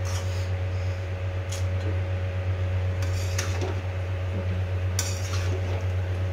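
Metal spoon stirring bow-tie pasta in a large aluminium pan, scraping and clinking against the metal a few times, over a steady low hum.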